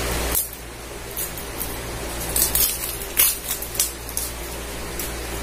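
Small plastic clicks and crinkles, about eight separate ones, as a plastic eyebrow pen and its clear plastic packaging are opened and handled.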